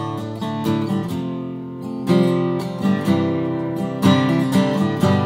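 Guitar intro: chords strummed and left to ring, with a new strum or chord change about once a second.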